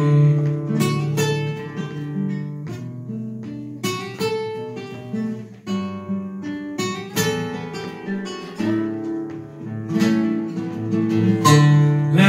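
Acoustic guitar played solo, strumming chords that ring on, with a fresh strum about every second.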